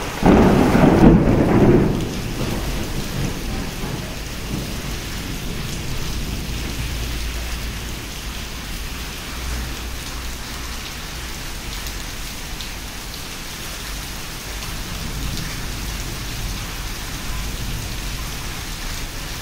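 Heavy rain falling steadily in a thunderstorm. A loud clap of thunder breaks in just after the start and lasts about two seconds before dying back into the steady rain.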